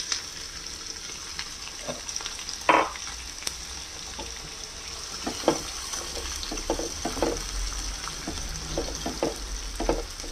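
Freshly added chopped onions sizzling in hot oil in a nonstick frying pan, with steady high sizzling. A silicone spatula stirs and scrapes through them in a series of short strokes, the loudest about two and a half seconds in.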